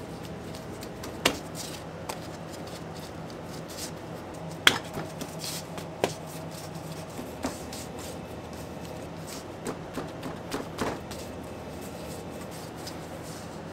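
Gloved hands rolling and folding pretzel dough on a work table: soft rubbing broken by a handful of short sharp taps and slaps, the loudest about five seconds in, over a steady low hum.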